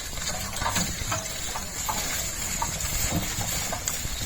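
Bullock cart on the move: scattered light knocks and clatter over a steady high-pitched hiss.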